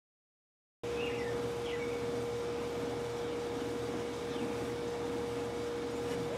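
Silence for about the first second, then outdoor ambience: a steady hum with a few short, faint bird chirps.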